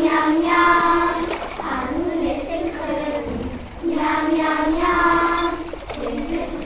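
High voices singing long held notes in two phrases, the second starting about four seconds in.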